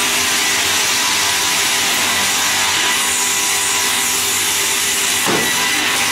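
A pass-through circular-saw slab-processing machine runs and rips a wooden slab. It makes a steady, loud sawing noise over a constant machine hum.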